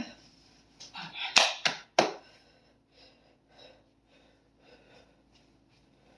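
Three sharp smacks in quick succession about a second and a half in, among brief breathy noise, then only faint scattered sounds.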